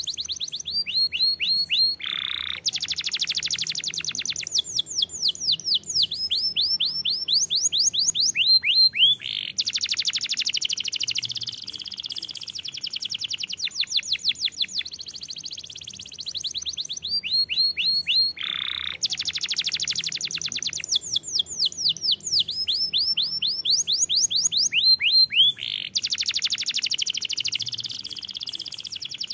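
Domestic canary singing a long, continuous high-pitched song of fast trills and rolls, with runs of quick falling whistled notes. The same sequence of phrases comes round again about halfway through.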